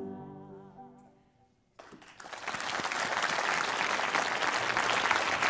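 A woman's sung note with vibrato fades out in the first second and a half. After a moment of silence, audience applause breaks out about two seconds in and goes on steadily.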